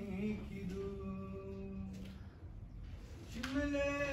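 A voice singing a slow folk song in long held notes. It fades out about two seconds in and comes back near the end on a rising note.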